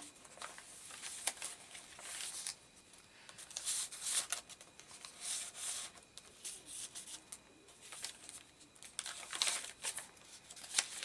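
Paper rustling and crinkling in short, irregular rustles as the pages of a handmade paper junk journal are turned and its pockets and envelopes are handled.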